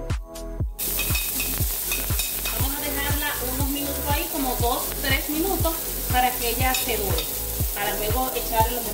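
Chopped onion frying in coconut oil in a stainless steel pot, a steady sizzle that starts about a second in.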